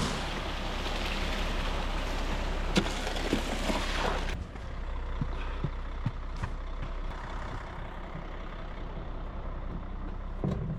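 Concrete mixer truck's engine running with a low steady rumble. A loud hiss covers the first four seconds and cuts off abruptly, leaving the engine and a few faint knocks.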